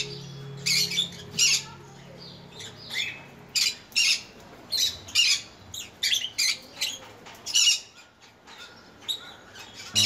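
Rainbow lorikeets giving short, high-pitched squawking calls in quick, irregular succession.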